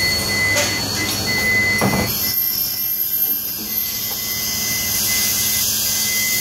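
Compressed air hissing steadily through the hose, regulator and fittings of a wax slabbing plate being pressure-tested at 90 psi, with a steady high whine. A short knock comes about two seconds in, after which the low hum drops away and a higher-pitched hiss takes over.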